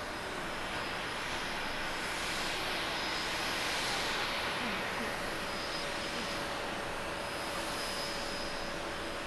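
Jet noise from an Airbus A321neo's Pratt & Whitney geared turbofans as the airliner flares and lands. A steady rushing swells to its loudest about four seconds in, then eases as the main wheels meet the runway.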